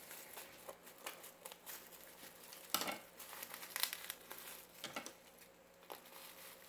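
Plastic packaging crinkling in irregular crackles as it is pulled open by hand, the loudest about three and four seconds in.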